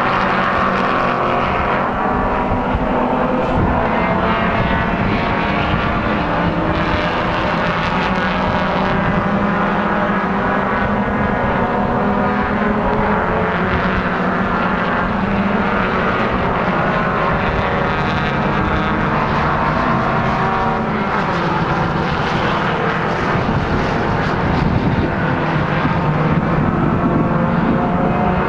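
Race car engines heard at a distance around the circuit: several overlapping engine notes in a steady drone, each rising and falling in pitch as the cars accelerate and brake.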